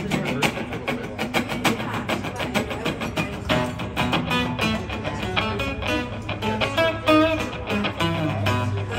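Amplified acoustic guitar playing an instrumental passage: strummed chords, then picked single-note lead lines from about three and a half seconds in.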